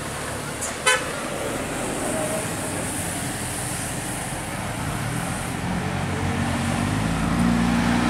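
Road traffic noise of a bus and other vehicles on the road, with a sharp click about a second in. Over the last second or two, an engine note rises steadily as a vehicle accelerates.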